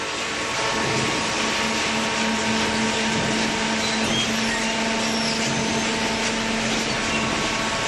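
Horizontal cardboard baler with its infeed conveyor running: a steady machine drone with a constant low hum.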